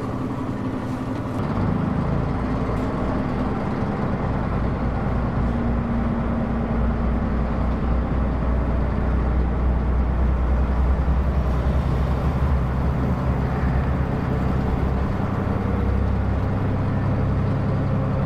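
Diesel railcar heard from inside the car as it pulls away from a station and accelerates. Its low engine drone grows louder about two seconds in, and the engine note changes about twelve seconds in.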